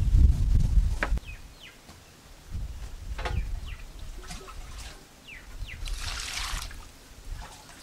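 Water poured from a plastic jug over cut pineapple in a stainless steel bowl, a brief splash about six seconds in. Birds chirp a few times, and a low rumble fills the first second.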